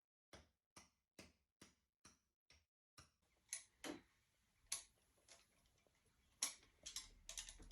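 Faint ticking: seven even, sharp ticks at a little over two a second, then a few irregular clicks and light knocks against quiet room noise.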